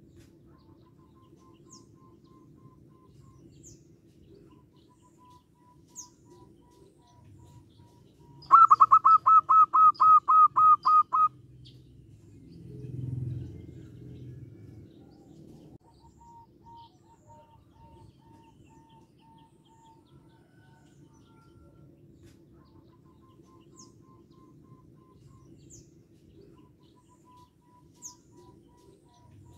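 Zebra doves (perkutut) calling: a loud run of about a dozen quick, evenly spaced notes about eight seconds in, with fainter trains of similar notes before and after. A brief low rumble follows the loud run, and faint high chirps come now and then.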